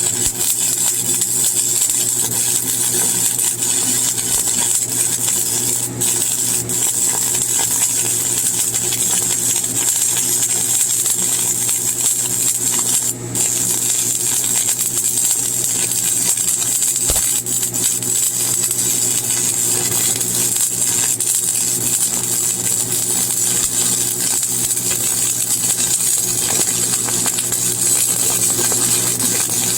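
Stick-welding arc burning a 7018 rod: a steady, loud crackling hiss with an electrical hum underneath, running without a break.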